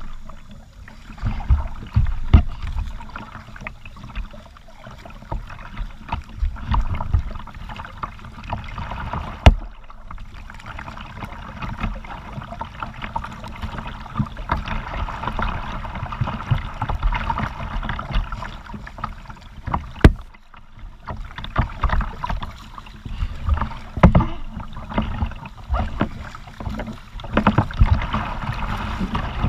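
Kayak being paddled: water splashing and dripping from the paddle strokes, with low thumps through the hull. Two sharp knocks stand out, about ten seconds in and again about twenty seconds in.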